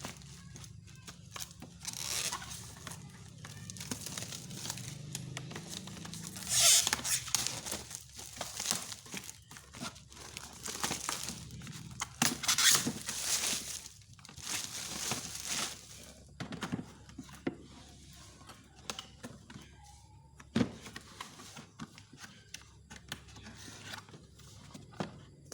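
Packaging crinkling and rustling in irregular bursts as it is handled and pulled open, with scattered light knocks, loudest in the first half.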